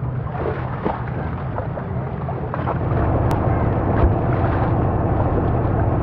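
A boat's motor running steadily with a low rumble, getting a little louder about three seconds in.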